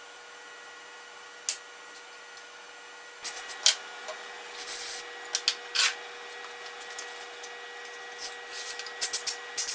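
Hand work with tools on metal parts: scattered clicks and short scraping, rubbing noises that start about three seconds in and grow busier near the end, over a steady electrical hum.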